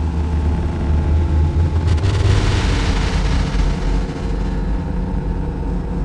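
City street traffic: a steady low rumble, with the hiss of a vehicle passing, rising about two seconds in and fading away a couple of seconds later.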